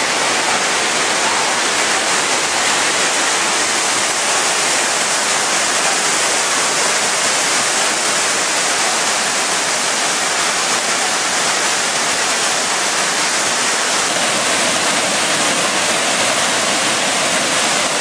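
Waterfall on the Kaveri River: loud, steady rush of white water pouring over rocks.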